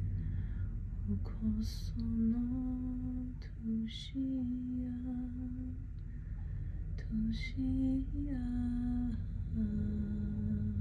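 A woman humming a slow, wordless tune in long held notes, with short hissing sounds between phrases.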